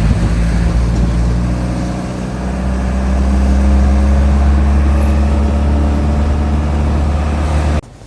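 A motor vehicle's engine running with a steady low rumble and hum. It cuts off abruptly near the end.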